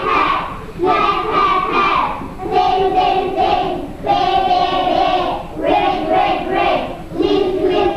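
A group of young children singing a song together, in sustained notes and short phrases of about a second each.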